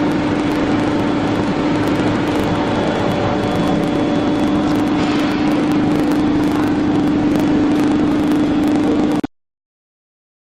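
Woodworking CNC router running steadily: a constant high whine over a dense noisy hiss, stopping abruptly about nine seconds in.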